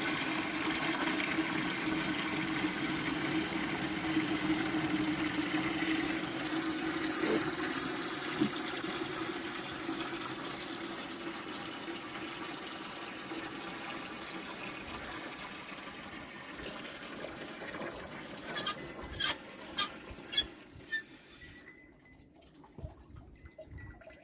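Water running into a container as it is filled: a steady rushing that slowly fades and stops about three seconds before the end, followed by a few light knocks.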